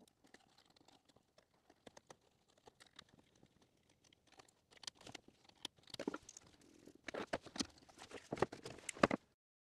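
Faint small clicks, scrapes and light knocks of a screwdriver and hands working screws into a 3D-printed plastic mount, sparse at first and busier over the last few seconds, then cutting off suddenly.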